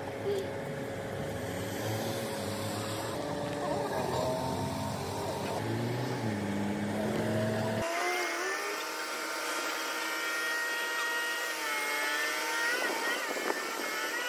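Truck-mounted ladder lift running: its engine and hydraulic boom drive give a steady mechanical whine whose pitch shifts as the boom moves. About eight seconds in, the sound changes abruptly to a higher whine with several tones that bend in pitch together.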